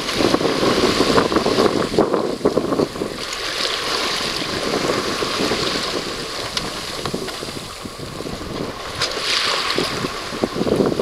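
Wind buffeting the microphone and water rushing past the hull of a sailing yacht under way, swelling and easing in gusts.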